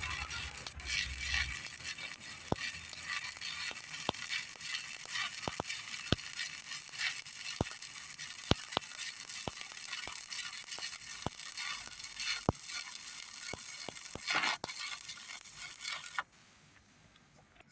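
Electric stick-welding arc crackling steadily with frequent sharp spatter pops during a vertical weld, cutting off suddenly about 16 seconds in as the arc is broken.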